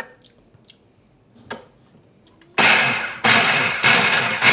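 Countertop food processor pulsing a sauce of softened chilies, garlic and adobo juice. A couple of light clicks, then from about two and a half seconds in the motor whirs in three short pulses of about half a second each.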